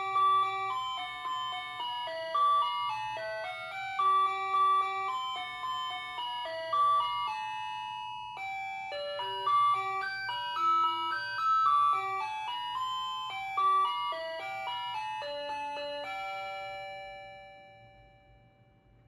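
Ajanta wall clock's electronic hourly chime playing a bell-like melody of single notes, which stops about three seconds before the end and rings away to near silence.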